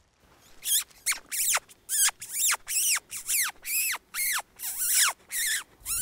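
An animal calling: a rapid series of about a dozen high, squeaky notes, each sweeping steeply downward in pitch, about two a second.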